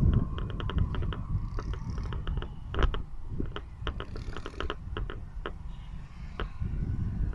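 Rapid, irregular clicking and rattling from a moving vehicle, over a steady low rumble of engine and road.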